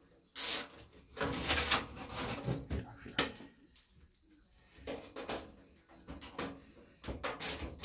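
Scraping and knocking from the casing of a small heater being handled in a bench vise, a string of short, irregular scrapes and clicks.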